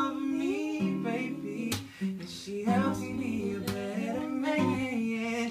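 A man singing a slow pop love song, accompanying himself on a strummed steel-string acoustic guitar.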